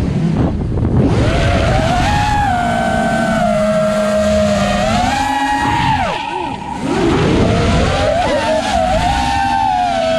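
Brushless motors and three-blade props of a 5-inch FPV quadcopter (Turnigy 2205 2300KV motors) whining. The pitch holds fairly steady, drops sharply as the throttle is cut about six seconds in, then climbs back. Wind rushes over the onboard camera's microphone underneath.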